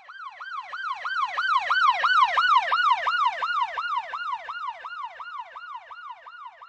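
Emergency-vehicle siren in a fast yelp, its pitch sweeping up and down about three times a second; it swells to a peak in the middle and then fades.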